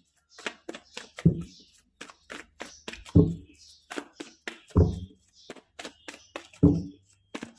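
A tarot card deck being shuffled by hand, the cards making quick sharp clicks and slaps, with four heavier knocks, about one every two seconds, as the deck is struck against the table or knocked with the hand.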